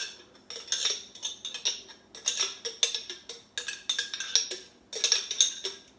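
A utensil repeatedly clinking and scraping against a container as sweet beans are scooped out, in about five quick bursts of sharp clinks.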